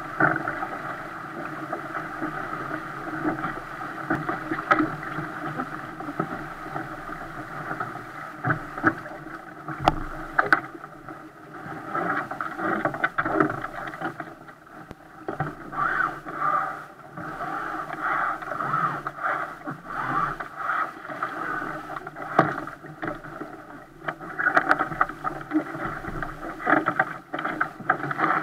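Hull of a 470 racing dinghy driving through choppy water: rushing, splashing water with irregular surges and short slaps and knocks as waves strike the bow. The sound is muffled, heard from a camera fixed on the foredeck.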